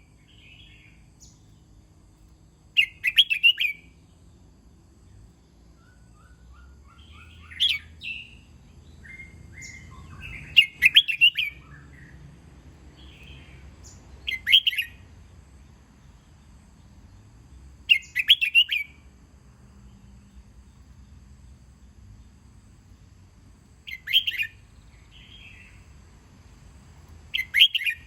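Red-whiskered bulbul singing: short, clear phrases of a few quick notes, repeated about every three to six seconds, seven times in all.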